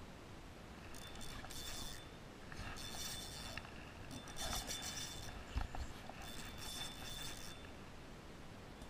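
Spinning reel whirring in four short spurts of about a second each as line is cranked in on a hooked fish. A low thump about halfway through.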